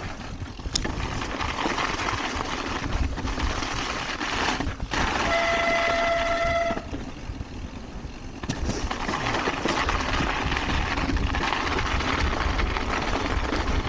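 Mountain bike brake squealing in one steady, high note for about a second and a half around the middle, over a constant rushing noise of the ride.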